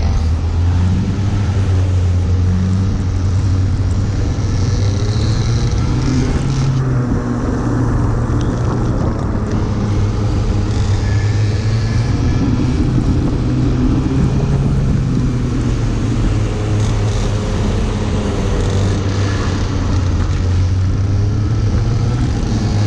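Go-kart engines running hard at race speed, the onboard kart's engine note rising and falling as it accelerates and lifts off, over a steady hiss of wind and spray from the wet track.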